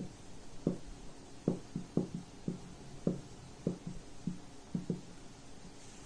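Marker pen writing on a whiteboard: a series of about a dozen short, soft knocks from the strokes, irregularly spaced, thinning out near the end.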